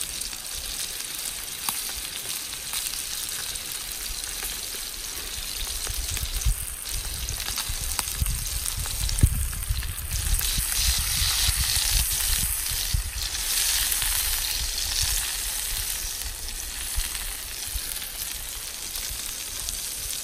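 Steak sizzling in the aluminium frying pan of a Trangia 27 camping stove, a steady hiss that grows louder in the middle stretch while the pan is handled, with a few light knocks.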